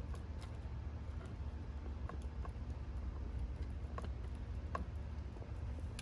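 Faint, irregular small clicks of an Allen wrench working a screw out of a leaf blower's plastic housing, about five in all, over a steady low hum.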